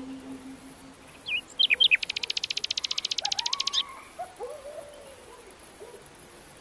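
Bird calls: a few quick high downward chirps, then a fast even trill of about two seconds, then softer wavering lower whistles.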